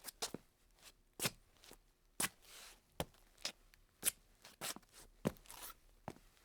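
Hard-soled dancing shoes tapping and scuffing on a tile floor: a quick, uneven run of heel and toe clicks, some in close pairs, with short slides between steps.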